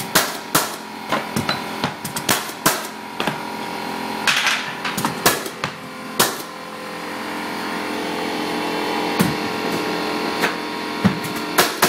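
Pneumatic hardwood flooring nailer being struck, each blow driving a fastener into the boards with a sharp bang. About two blows a second for the first six seconds, then a few spaced blows near the end, over a steady hum.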